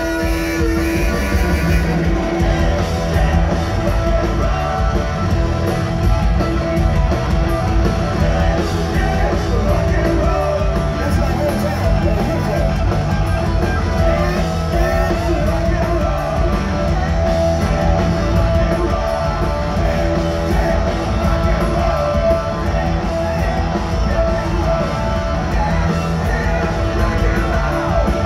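Live rock band playing loud: distorted electric guitars over drums and bass.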